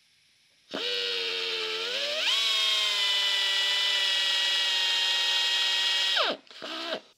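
Air drill boring an undersized pilot hole into an air-cooled Porsche 911 cylinder head. It starts about a second in, rises in pitch as it comes up to speed, runs with a steady whine, winds down near the end, then gives one short second burst before stopping.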